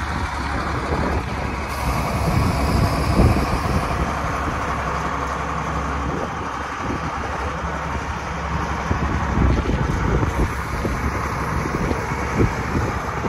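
Case 4490 tractor's six-cylinder turbocharged diesel engine running steadily at idle.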